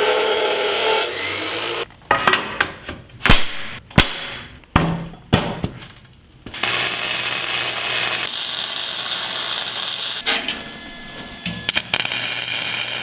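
Abrasive metal chop saw cutting through steel tubing for the first two seconds. This is followed by a run of sharp metal knocks and clanks, then a long steady noise, ending in the crackle of arc welding.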